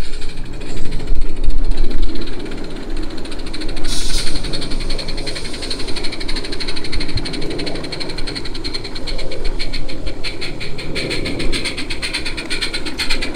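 Small gas-fired live-steam garden-railway locomotive (32 mm gauge) chuffing rapidly and evenly over a steady hiss of steam as it approaches.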